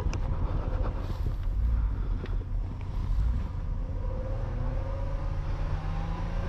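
A 4x4 vehicle's engine labouring to get through deep snow, its pitch climbing steadily over the last few seconds as it revs, over a heavy low rumble. The vehicle is stuck.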